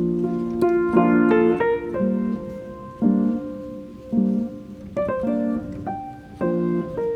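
Background music: a piano playing chords about once a second, with a short rising run of higher notes near the start.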